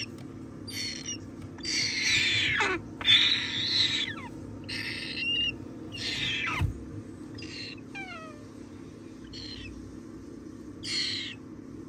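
Moluccan cockatoo chick giving a string of harsh, raspy calls, about eight in all, some sliding down in pitch.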